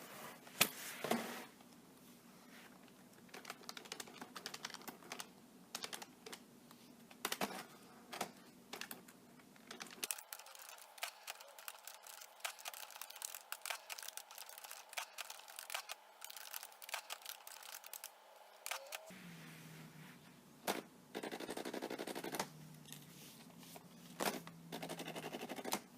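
Keys of a Brother EP-20 electronic typewriter being typed on: light plastic clicks at an uneven pace. In the last several seconds a steady low whir comes and goes between the keystrokes, the thermal printer printing the typed text.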